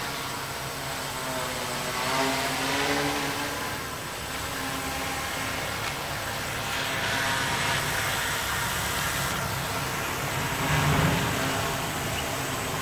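Homemade quadcopter crop-spraying drone hovering, its propellers giving a steady multi-tone drone whose pitch drifts up and down as the motors adjust, getting louder about eleven seconds in.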